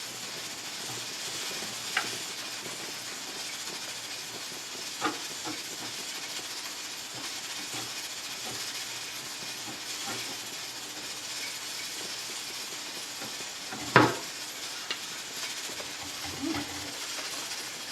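Steady hiss of a lime scale remover fizzing as it works on calcium buildup around a pressure canner's petcock, with a few sharp clicks and knocks, the loudest about fourteen seconds in.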